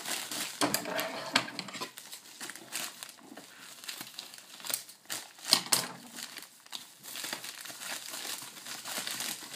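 White plastic mailer bag crinkling and rustling with sharp crackles as it is cut with scissors and pulled open by hand.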